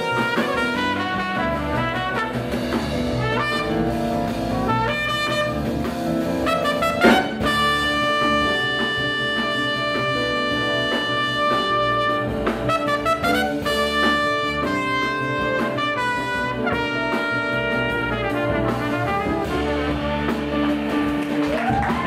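Live small-group jazz: a trumpet plays a melodic line over piano, guitar, bass and drum kit, holding one long note for several seconds after a sharp drum accent about seven seconds in.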